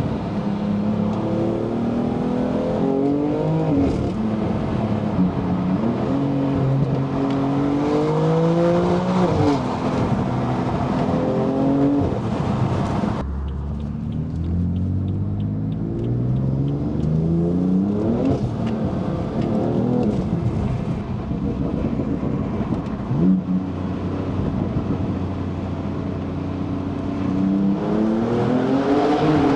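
A 2017 BMW F80 M3's twin-turbo S55 inline-six accelerating hard through the gears. The engine note climbs steeply and drops at each upshift, and this happens over several pulls in a row.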